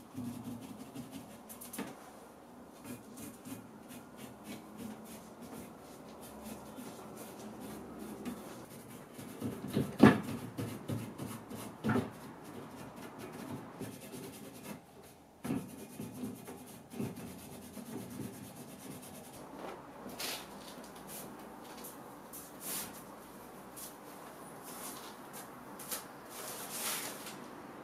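A cloth rubbing over a painted, carved mirror frame, with a few light knocks against the frame and workbench, the loudest about ten seconds in. Near the end, a cloth wiping across mirror glass in short strokes.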